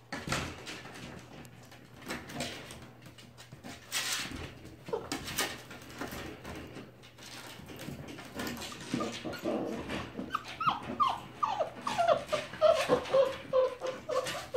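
Puppies' paws scrabbling and knocking on the plywood floor and wire pen. About two-thirds of the way through, puppies start whimpering: many short, falling whines in quick succession, louder than the scrabbling.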